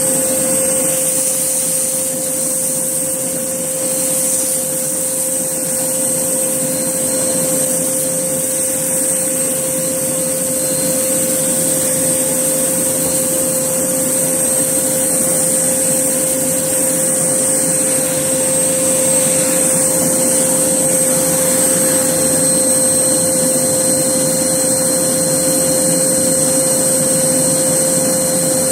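Hoover Blaze canister vacuum cleaner running steadily, its motor giving a constant whine with airflow noise.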